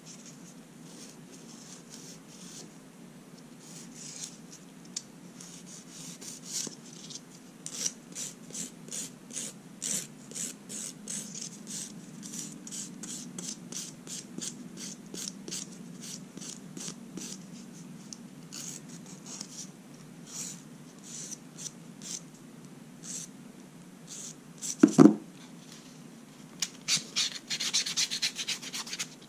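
Nail file rasping back and forth across long fingernails in short strokes, about two a second, quickening into rapid short strokes near the end. One loud thump about 25 seconds in.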